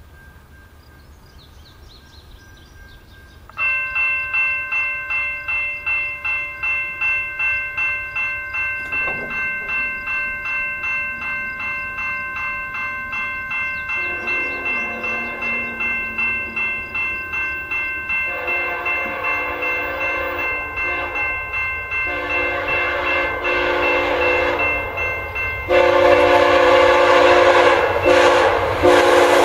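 A grade-crossing warning bell starts suddenly a few seconds in and rings steadily at about one and a half strokes a second. From about halfway, the horn of an approaching VIA Rail GE P42DC passenger locomotive sounds in several long blasts, each louder than the last. Near the end the train arrives with a loud rush of wheel and rail noise.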